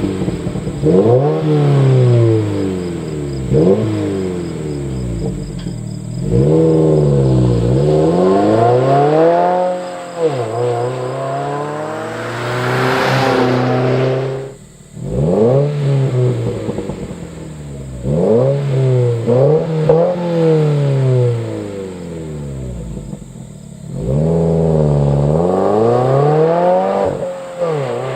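Subaru WRX turbocharged flat-four with an aftermarket exhaust being revved again and again, the pitch climbing quickly and falling back each time. A brief hissing rush comes about halfway through, followed by a short dip.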